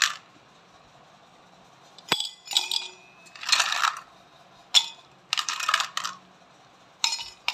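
Ice cubes dropped one after another into stainless steel tumblers, clinking and rattling against the metal. There are about six short clinks, starting about two seconds in.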